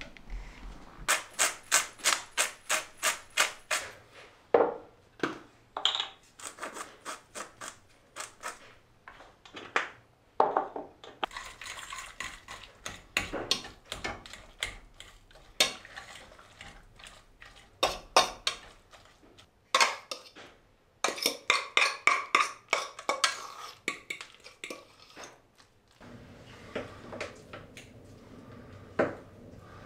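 Cooking at a gas hob: a metal pot and utensils clattering, and a spoon stirring and scraping in the pot. Near the start there is a quick run of sharp, even clicks.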